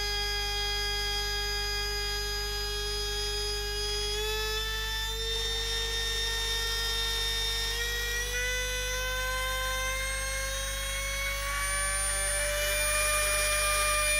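T238 BL-480 brushless airsoft motor spinning unloaded with a steady whine. From about a third of the way in, the pitch climbs gradually, as the motor's built-in speed regulator is turned up toward full speed, and it levels off near the end slightly louder.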